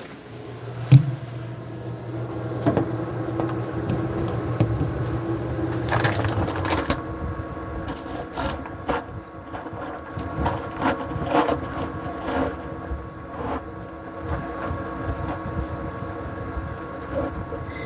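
A steady electrical hum with several fixed tones, heard muffled from inside the closed Cannatrol curing cabinet, with scattered knocks and taps against the cabinet.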